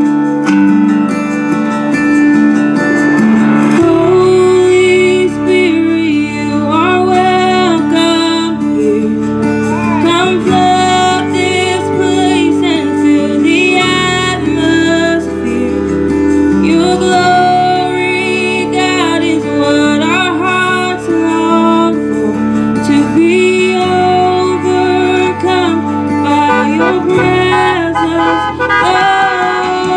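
A woman singing a slow gospel worship song into a microphone, her voice sliding through long runs, over sustained electric keyboard chords.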